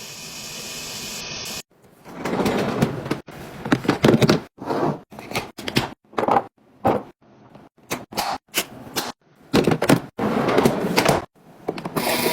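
Handling noise from items being moved about and set down: short bursts of rustling and clattering with sharp clicks, broken off by abrupt cuts every second or so. A steady hiss fills the first second and a half.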